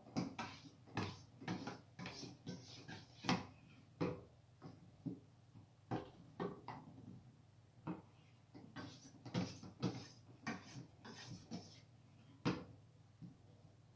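A sharpening stone on a guide rod scraping along the edge of a long steel knife blade in quick back-and-forth strokes. The strokes come in two runs with a pause between, where there are only a few lighter clicks.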